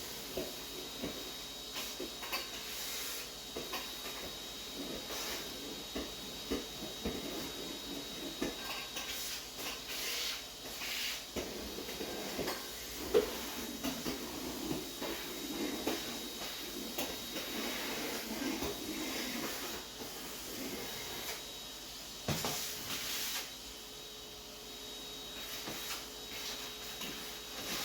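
Kitchen cleaning and handling sounds: scattered knocks, clicks and light clatter of things being moved and put down, with a faint steady high tone in the background. The sharpest knock comes about halfway through.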